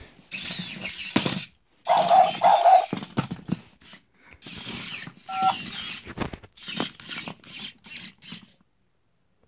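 Robopet robot dog toy's gear motors whirring in stop-start bursts as it moves its legs, with short electronic tones from the toy: two quick beeps about two seconds in and a tone that steps up in pitch about five seconds in.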